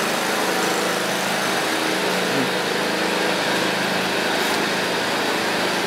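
A small engine or motor of winery machinery running steadily with an even hum.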